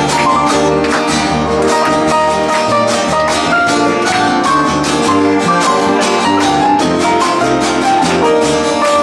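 Music: guitar-led instrumental with plucked strings and a steady rhythm.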